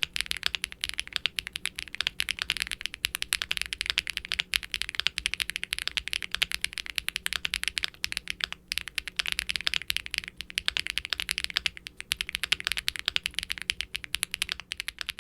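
Fast continuous typing on a Qwertykeys QK75N mechanical keyboard with an FR4 plate, Akko Cilantro tactile switches and GMK double-shot ABS keycaps, giving a poppy, marbly keystroke sound. There are short pauses about two-thirds of the way through.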